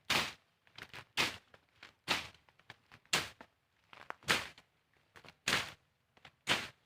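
Footsteps crunching on dry ground, about one short crunch a second, with faint small clicks between the steps.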